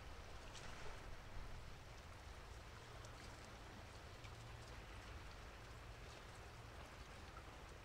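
Faint light rain: scattered raindrops ticking over an even hiss, with a steady low rumble underneath.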